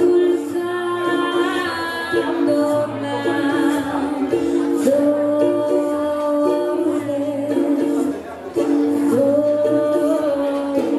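Mixed male and female a cappella group singing in close harmony through microphones and a PA, with long held chords and a brief drop in loudness about eight seconds in.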